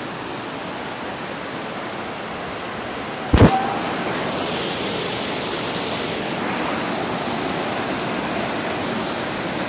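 Waterfall rushing steadily. A sharp thump a little over three seconds in, after which the rushing is louder.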